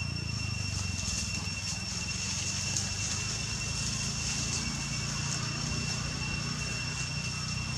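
Steady outdoor background noise: a continuous low rumble with a constant high-pitched whine over it and faint scattered ticks.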